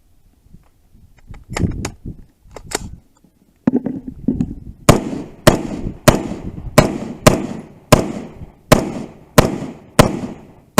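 A steady string of gunshots, about ten shots evenly spaced a little over half a second apart, starting about halfway through, each with a short echo. A few lighter sharp cracks come earlier.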